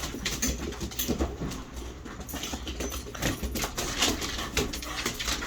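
Pet dogs playing together: short dog vocalisations among a quick, irregular run of small clicks and knocks.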